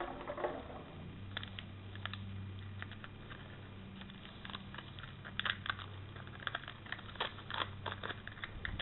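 Thin plastic water-bottle container and its tape crackling and clicking in the hands as the cut lid is peeled away from an air layer's root ball. It is a run of sharp, irregular clicks over a low steady hum.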